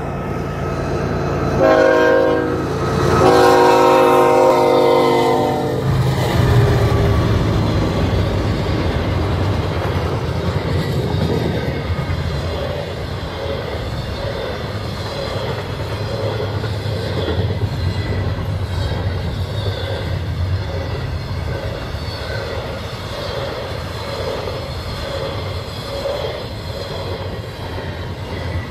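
CN freight train No. 121 sounding its horn, a short blast then a long one whose pitch falls as it passes. The train then rumbles steadily by, its wheels clicking over the rail joints.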